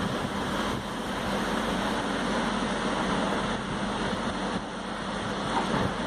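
Steady background noise with a low hum, unbroken throughout.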